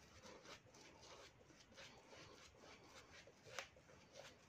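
Shaving brush swishing lather over stubble on a face, faint and rhythmic at about two or three strokes a second, with one louder stroke near the end.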